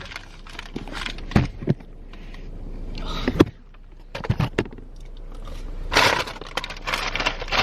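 Fast-food packaging being handled: a few sharp clicks and knocks, then a short rustle near the end, over a low hum.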